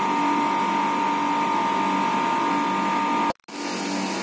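Steady mechanical hum with a few held tones over a noisy haze, cut off for an instant about three seconds in, then carrying on.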